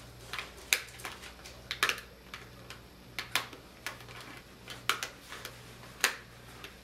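Plastic laptop screen bezel being pried off by hand: a string of sharp, irregular clicks and snaps as its retaining clips pop loose from the display lid, with the loudest snaps about a second in, near the middle and near the end.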